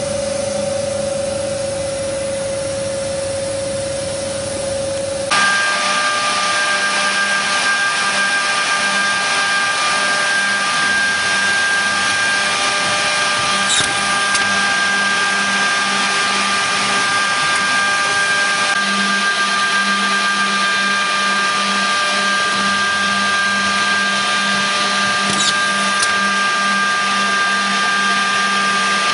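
Griggio edgebanding machine's motors running with a steady hum and whine. About five seconds in the sound changes suddenly: one steady tone cuts off, two higher whining tones take over, and it gets a little louder.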